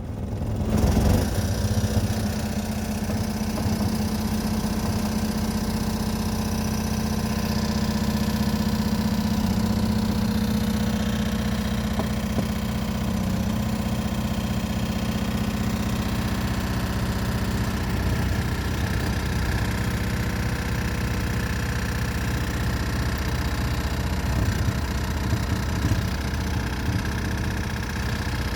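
Motor-driven tobacco dust-shaking machine for hand-rolled cigarette tobacco switching on and running with a steady low hum and vibration.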